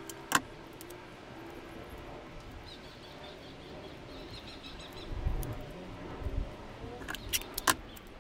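A paper label being handled and stuck onto a glass jar: the backing paper peeled off and rustled, with a few sharp taps, the loudest just after the start and near the end.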